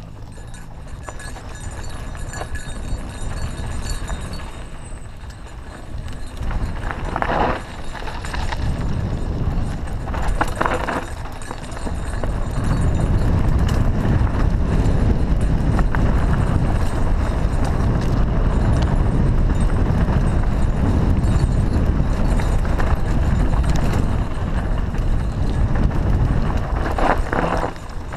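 Mountain bike riding over a dirt singletrack: tyres on dirt, the bike rattling and knocking over bumps, and wind rumbling on the camera microphone. The rumble gets much louder about twelve seconds in as speed picks up, and there are three short, higher bursts along the way.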